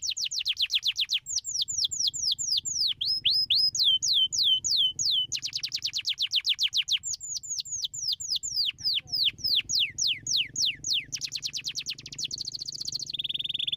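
Domestic canary singing: phrases of quick repeated notes, each sweeping down in pitch, switching from one phrase to the next every second or two, with very fast trills about five seconds in and again near the end.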